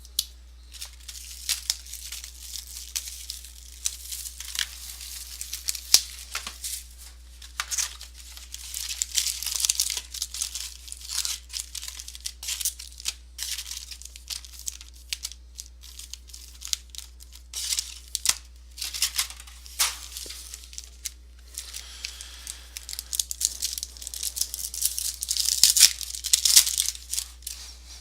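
Packaging of a box of 2014 Topps Prime football trading cards being torn open and crinkled, with short papery crackles and clicks coming in clusters. The handling is busiest about a third of the way in and again near the end.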